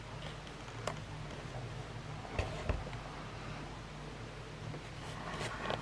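Quiet room tone: a steady low hum with a few faint clicks and rustles from the plastic packaging of a boxed die-cast model truck being handled.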